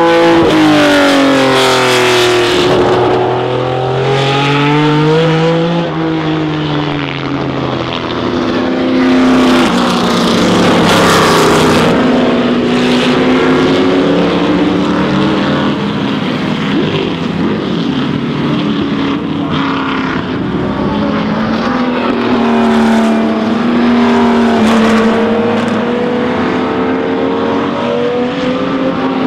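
Racing car engines running hard, their notes rising and falling again and again through the gears.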